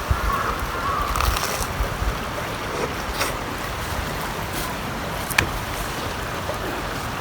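River water rushing steadily, with a few sharp clicks over it.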